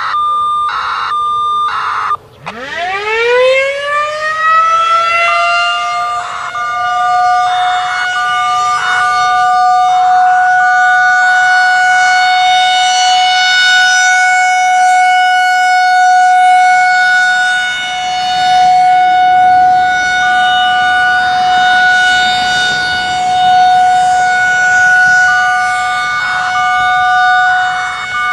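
A few short radio activation beeps, then a Federal Signal 2001 electromechanical outdoor warning siren winds up from a low pitch to a steady single-tone wail, the alert signal of a siren test. Its loudness swells and fades slowly.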